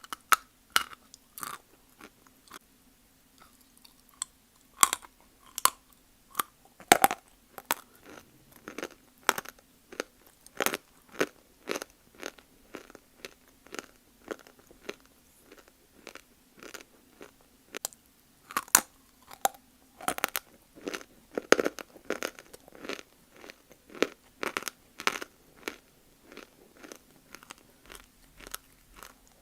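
Person biting and chewing dry lumps of multani mitti (fuller's earth clay) close to the microphone: repeated sharp crunches, about one or two a second, at an uneven pace.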